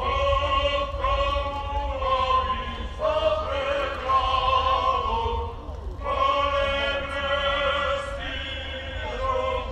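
Voices singing a slow song in long held notes, each lasting about a second, with a steady low wind rumble on the microphone.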